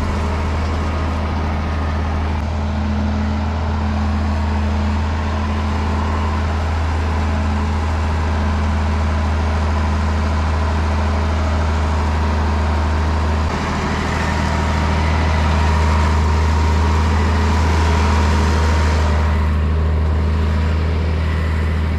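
Farm vehicle engine running steadily at a low hum. About two-thirds of the way in the engine note shifts and gets somewhat louder for a few seconds, then eases back.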